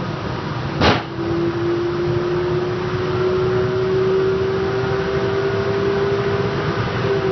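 Oneida 3 HP Smart Dust Collector running with a steady hum, and about a second in a single loud clank as the bottom of its collection barrel snaps upward under the suction. The barrel bottom is oil-canning, flexing inward as the vacuum builds.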